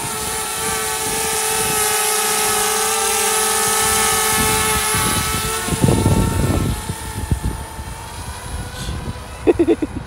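DJI Spark quadcopter's propellers whining steadily as it hovers close by. About six seconds in, a short rumble of wind hits the microphone, and the propeller whine then fades and grows fainter.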